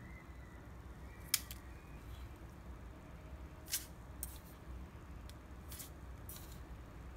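Plastic measuring spoon scooping and tapping as salt and sugar are spooned into a paper cup: a few sharp, light clicks, the loudest about a second in and another near the middle, over a low room hum.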